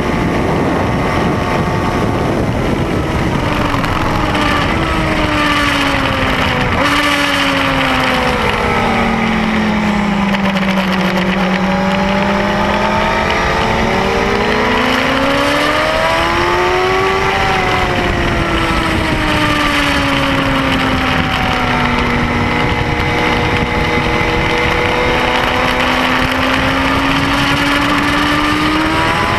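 Triumph Speed Four's 600 cc inline-four engine heard onboard at track speed, with a constant rush of wind and road noise. The revs drop in steps about seven seconds in, stay low through the middle, rise and fall again, then climb steadily toward the end.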